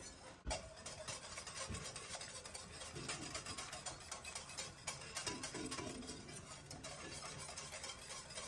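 Wire balloon whisk stirring hot milk and cream in an enamelled pot, its wires ticking rapidly and steadily against the pot's bottom and sides, with a single knock about half a second in.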